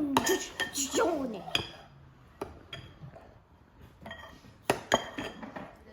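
Metal utensils clinking and knocking against kitchen dishware: about ten sharp, ringing clinks, clustered in the first two seconds and again near the end.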